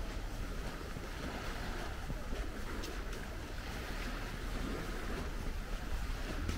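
Seaside outdoor ambience: a steady wash of wind and gentle surf, with wind rumbling on the microphone and a few faint ticks.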